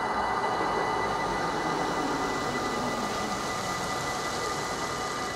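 Level crossing warning bell ringing steadily, over the rushing noise of a passing train that eases off after the first couple of seconds.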